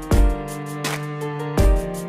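Background music: sustained instrumental notes over a steady, deep beat.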